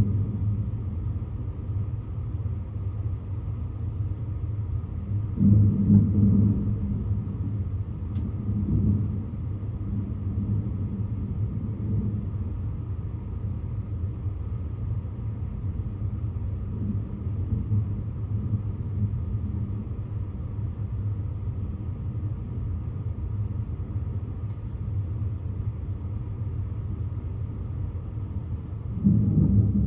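Rolling thunder from a lightning storm: a continuous low rumble that swells louder about five seconds in and again near the end.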